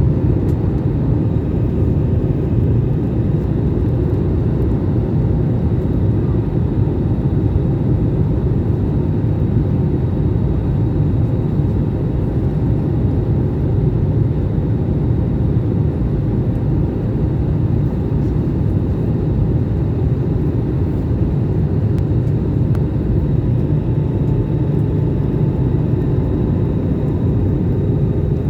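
Airliner in flight: a steady, unchanging low roar of engines and airflow, as heard from inside the cabin, with a faint steady whine above it.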